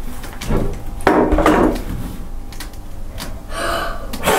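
A prop revolver and a candlestick knocking and scraping on a wooden table as they are put down and picked up, with a sharp knock about a second in. Near the end comes a strong puff of breath blowing out a candle.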